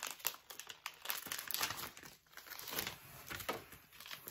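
Gift wrapping paper being torn and crumpled as a taped present is unwrapped, with irregular crinkles and rips.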